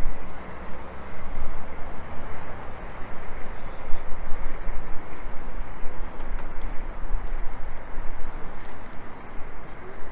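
A step-van food truck's engine running as the truck pulls away and turns across a parking lot. By its sound it is a gasoline V8, which the owner takes for a 350 rather than a Cummins 4BT diesel.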